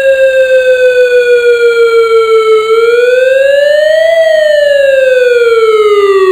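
ESC-864 electronic siren sounding its wail tone: one loud electronic tone that sinks slowly in pitch, swells back up about four seconds in, then winds down again.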